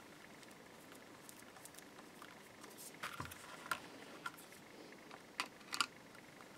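Faint scattered clicks and taps of a small screwdriver working the mounting screws of a Stratocaster single-coil pickup into its pickguard, with the screw, spring and pickup being handled. The clicks come in two short clusters in the second half.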